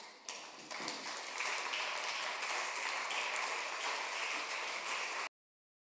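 Audience applauding, swelling over the first second or so and then holding steady, until it is cut off abruptly about five seconds in.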